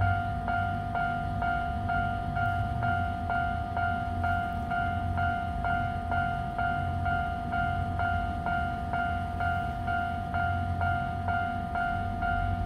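Japanese railway level-crossing warning bell ringing on and on, about two electronic clangs a second, over a low steady hum. It keeps ringing because an E353 express train is stopped at the crossing.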